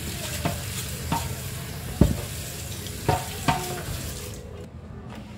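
Food sizzling in a hot pan while a utensil stirs it, clinking against the pan about five times. The sizzle dies away near the end.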